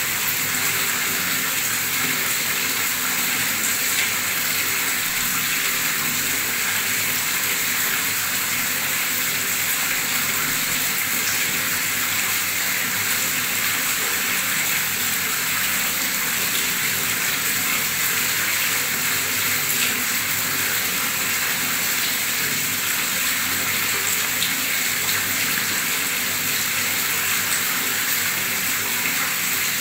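A strong stream of tap water pouring into standing water, splashing and bubbling in a steady rush.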